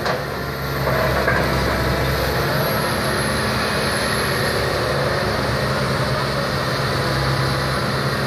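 Diesel engines of crawler excavators running steadily under working load: a Kobelco excavator working its boom to recover a Komatsu excavator stuck in mud. The engine drone dips briefly just after the start, then holds even.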